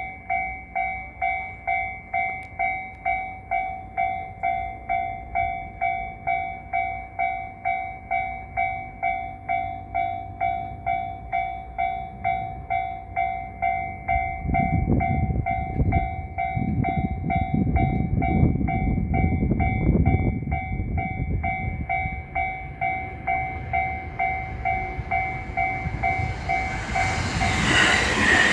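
Japanese railway level-crossing warning bell ringing steadily, a repeated two-tone ding about one and a half to two times a second. A train's rumble joins about halfway through, and louder train noise rises near the end.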